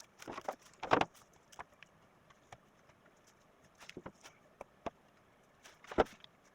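Split firewood logs knocking together as they are stacked by hand: an irregular scatter of wooden clunks, the loudest about a second in and near the end.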